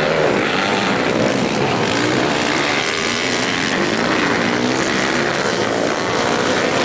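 Dirt bike engines racing on a motocross track, their pitch rising and falling as the riders open and close the throttle.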